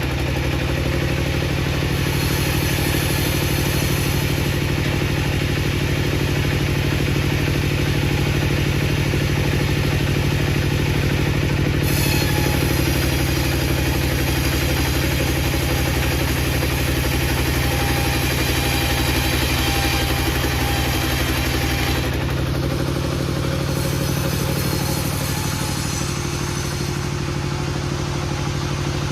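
An engine running steadily at a low, even speed, its hum unbroken, with the sound changing abruptly about twelve seconds in and again about twenty-two seconds in.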